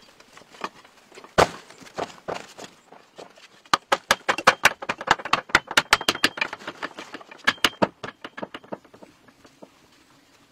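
A long-handled tool striking and crushing small stones on a packed-earth floor. There is a loud single knock about a second and a half in, then a fast run of sharp hits from about four to nine seconds in.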